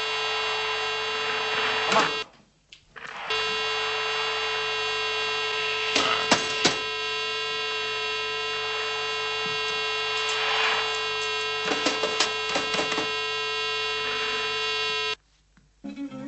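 A steady electronic buzzing tone. It breaks off for about a second a couple of seconds in, then resumes, and cuts off suddenly near the end. A few sharp clicks sound over it.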